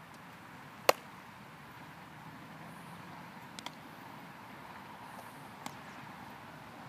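A baseball smacking once into a leather glove, a single loud sharp pop about a second in, followed later by fainter, distant pops of the ball being caught at the other end.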